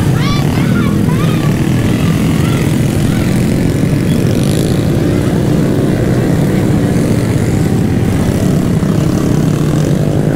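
Loud engine running steadily, with an even low hum that holds through the whole stretch.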